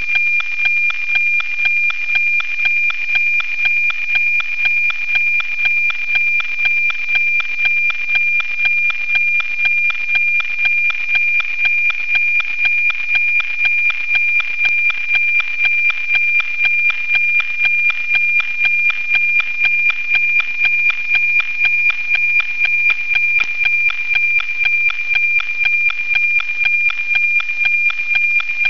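NOAA 19 weather satellite's APT picture signal, received on 137.1 MHz and FM-demodulated: a steady high tone with a regular tick-tock about twice a second, the sync pulses of each image line being sent.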